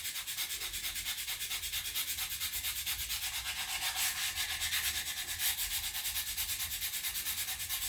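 Sandpaper rubbing on a wooden rifle stock in quick, even back-and-forth strokes, about five a second: sanding around a small dent before it is filled with super glue.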